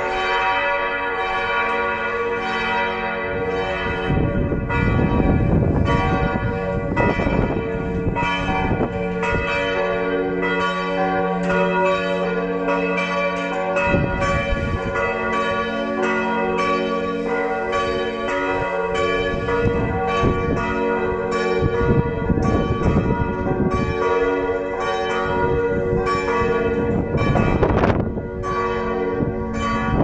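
Church bells ringing continuously, with strokes following one another and each note ringing on into the next. Now and then, gusts of wind rumble on the microphone.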